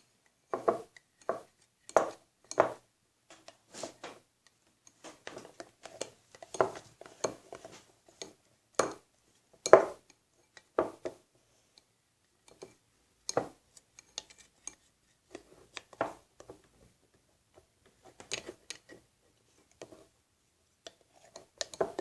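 A spoon stirring slime in a bowl: irregular clinks and knocks of the utensil against the bowl, some louder than others, with pauses between.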